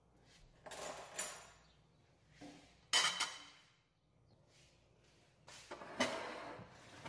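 Kitchen handling clatter: three separate bouts of dishes and utensils being moved, the middle one starting with a sharp clink.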